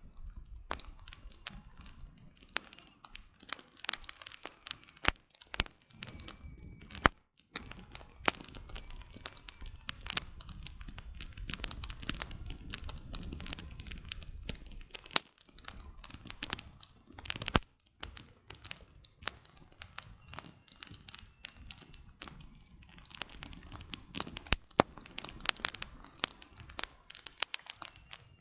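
Wood fire crackling and popping: many irregular sharp snaps from the burning logs over a low rush of flame.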